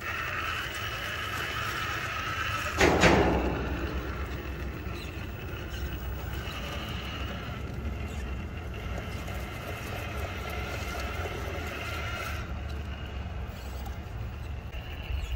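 Cross RC Demon SU4 rock crawler's brushless motor and transmission whining steadily as it crawls over rocks, fading near the end as it drives off, then returning. A single loud thump about three seconds in, over a steady low rumble.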